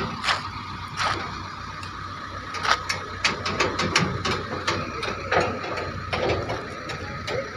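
Heavy recovery machinery running steadily, with many irregular sharp metallic clanks and knocks.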